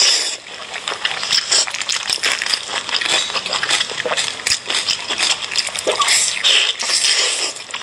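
Close-miked chewing and lip-smacking on sticky braised pork belly: a dense, irregular run of wet clicks and smacks.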